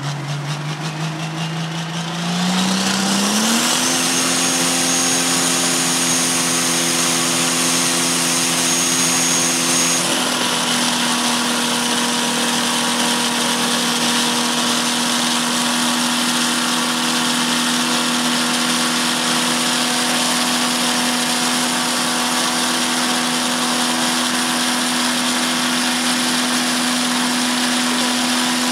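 Diesel engine of a John Deere Pro Stock pulling tractor in a runaway: it climbs in revs over the first few seconds, then holds steady, stuck wide open. A high whine rises along with it and stops about ten seconds in. The fuel pump is stuck open and dumping all its fuel into the engine.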